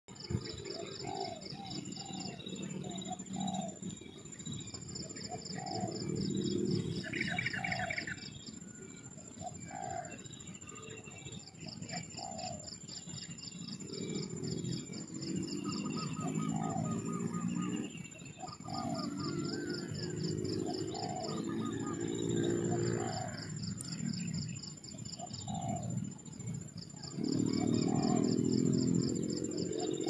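A mix of birds calling: short chirps repeating about every half second, rapid high trills coming in stretches of a few seconds, and lower layered calls that swell and fade, over a faint steady high tone.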